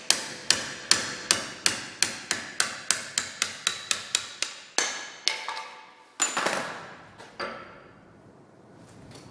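Hand hammer striking a punch to drive the old handle and its sheet-metal wedge out of a cross peen hammer head clamped in a vise: quick sharp metallic blows, about three a second and getting faster, for some four and a half seconds, then two last blows and a short rattle about six seconds in.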